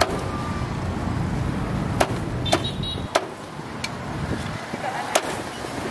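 Low rumble of road traffic that fades away about three seconds in, with four sharp clicks or knocks spread through it.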